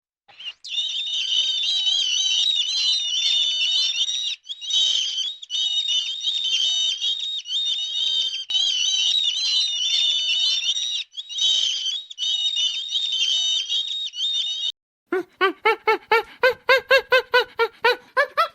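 Small birds chirping and twittering in a dense, continuous high warble, broken by a couple of brief gaps. Near the end it cuts to a different animal giving a rapid run of short, pitched calls, several a second.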